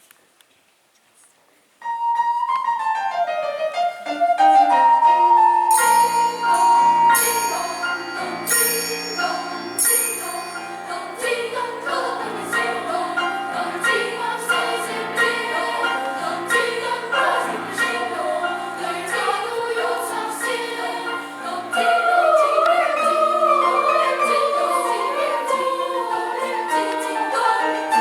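Choir singing a Christmas song with instrumental accompaniment, starting after about two seconds of quiet.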